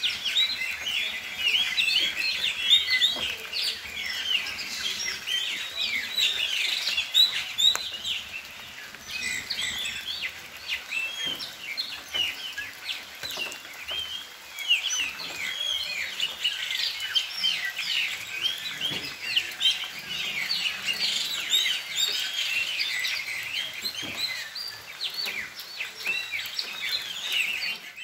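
Birds singing in a dense chorus: many quick high chirps overlapping without a break.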